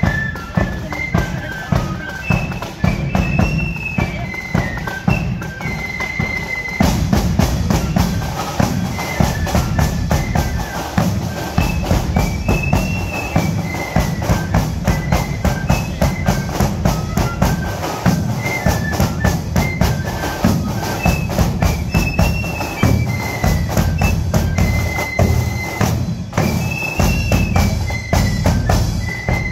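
Marching flute band playing a tune: a line of flutes carrying the melody over rapid, steady drumming with a bass drum beating under it. The drums get fuller and louder about seven seconds in.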